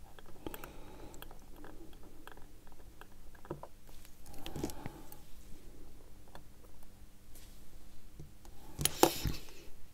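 Faint small metallic clicks and scrapes of a watchmaker's screwdriver backing out the last chronograph-bridge screw on a Seiko 6139 movement, with a sharper cluster of clicks about nine seconds in.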